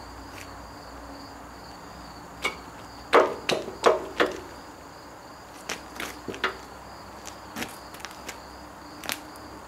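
Steel washer and pin clinking and clanking against a backhoe's bucket curl cylinder mount as they are fitted: a few sharp, ringing metal knocks between about two and a half and four seconds in, then scattered lighter clicks. A steady high insect drone runs underneath.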